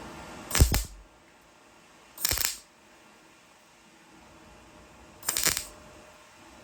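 Three short MIG tack welds from an H&S Autoshot welder, each a brief burst of under half a second, a couple of seconds apart: the 1/4 inch rod stem being tacked onto the washer rose.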